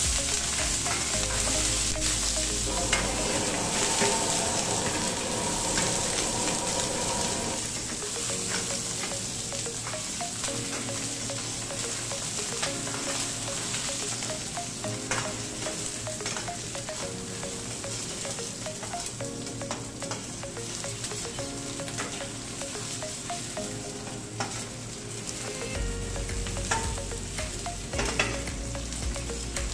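Oil sizzling steadily in a carbon steel skillet, with scattered clicks of a utensil stirring against the pan, as the pan is being seasoned. Soft background music runs underneath.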